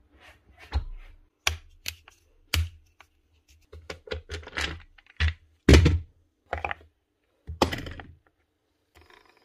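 Irregular clunks, knocks and clicks of a Bosch GSH16 demolition hammer's metal housing and gearbox cover being handled and set down on a workbench during reassembly after greasing, the heaviest thud a little past the middle.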